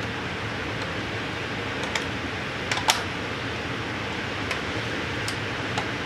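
A few small plastic clicks and taps, the loudest pair about three seconds in, as the front cover is pressed into place on a laptop hard drive caddy. A steady hiss lies under them.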